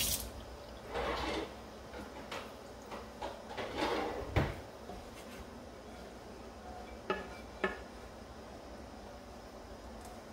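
A spatula scraping thick sauce from the inside of a pot, in short strokes, with a sharp knock near the middle and two light ringing clinks later.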